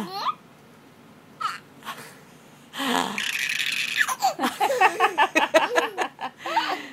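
A baby laughing in a run of quick, choppy giggles from about four seconds in, the loudest part; before it comes a rough, hissing sound lasting about a second.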